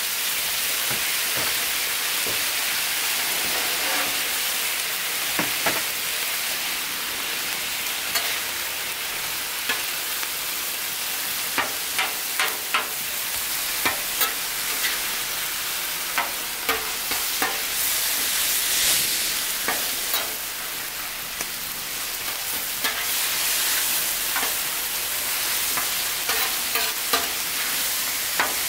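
Meat and shrimp in sauce sizzling steadily on a Blackstone steel flat-top griddle, while a metal spatula scrapes and clacks against the griddle surface as the food is turned. The clacks come often, busiest in the second half.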